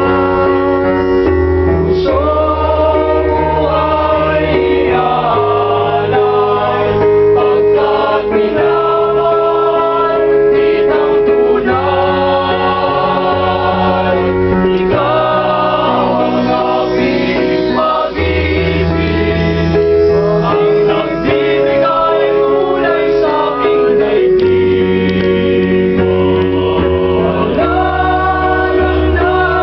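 Male vocal group singing in harmony: several voices hold long chord notes over a bass part that steps between low notes.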